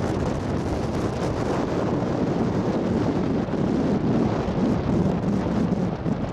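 Wind buffeting the microphone of a camera riding in a moving vehicle, a steady low rumble of wind and road noise.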